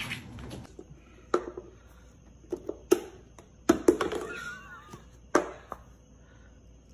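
A lidded drink cup knocked over and batted about by a cat on a hardwood floor: about half a dozen sharp knocks and clatters at irregular intervals.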